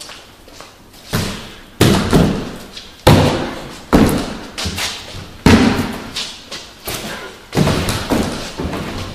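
A wooden door being banged and slammed over and over: about ten loud, irregular thumps, each with a short ring after it.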